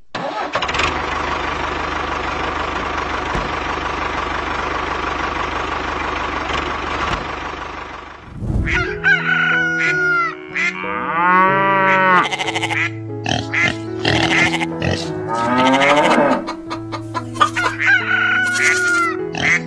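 Small electric toy-tractor motor and gears running steadily for about eight seconds, then cutting off. After that comes background music with chicken clucking and rooster crowing.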